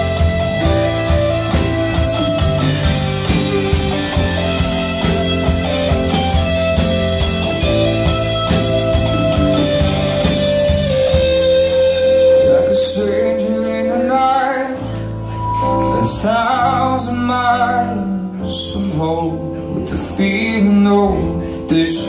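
Live rock band playing an instrumental passage on electric guitar, bass guitar, drum kit and digital piano. About twelve seconds in, the steady drum beat drops away and the playing thins out to a lead line that bends and wavers in pitch.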